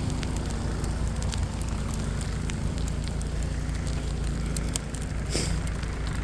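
A steady low mechanical hum with irregular crackling ticks scattered over it.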